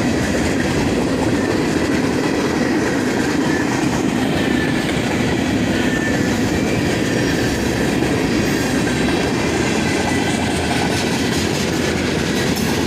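Norfolk Southern manifest freight train rolling past at close range: a steady rumble of wheels on rail, with faint high squealing tones above it.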